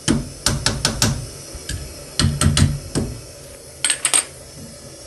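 Sharp metal clicks and clinks in irregular clusters as an adjustable wrench and a hand work a chrome angle stop shutoff valve under a sink. The valve is stiff from years without being turned.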